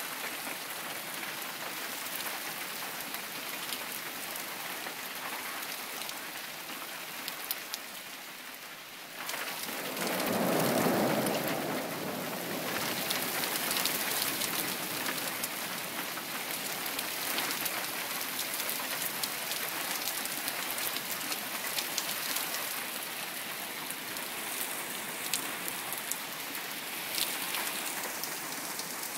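Heavy rain falling steadily in a thunderstorm. About ten seconds in, a low rumble of thunder swells and fades over two or three seconds.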